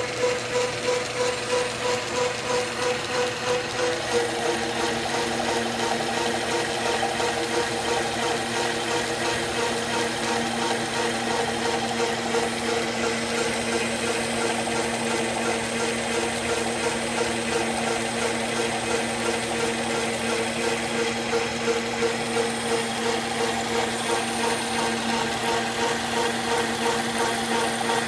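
South Bend metal lathe running under power: a steady mechanical whir with a regular beat. About four seconds in the sound changes, with a rougher noise added to the steady tones.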